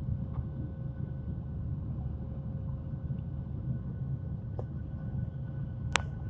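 Boeing airliner's steady low cabin rumble during the climb after takeoff, with faint steady engine tones above it. A single sharp click near the end.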